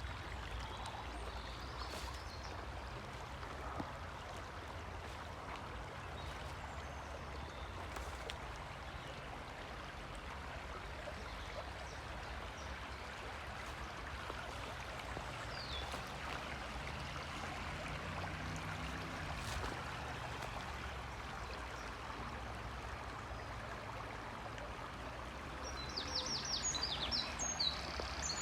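Small stream flowing steadily. A bird chirps several times near the end.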